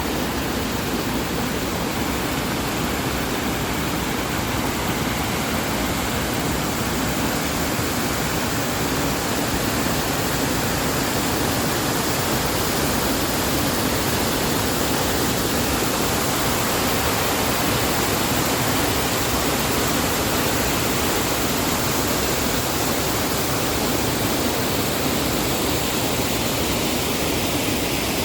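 Waterfall pouring steadily, a dense, even rush of water.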